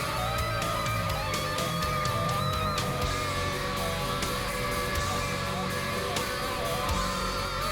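Background music with guitar and a steady beat, a held lead line sliding gently in pitch.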